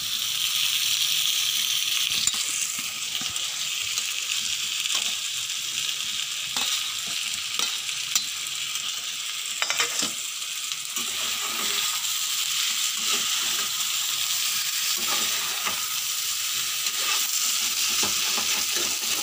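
Paneer cubes and pointed gourd frying in thick spiced masala in a pan, sizzling steadily while a steel spatula stirs and scrapes with frequent clicks. The masala is starting to stick to the bottom of the pan, the sign that it is fully fried down.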